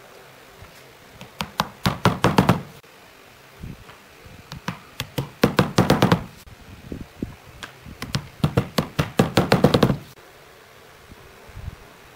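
A mallet tapping glued hardwood inlay pieces down into their recesses in a pine tabletop: three bursts of quick repeated knocks, each a second or two long, with a single lighter tap near the end.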